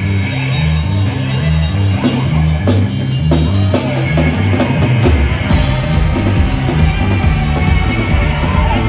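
Live rock band playing: electric guitar over a stepping electric bass line and a drum kit.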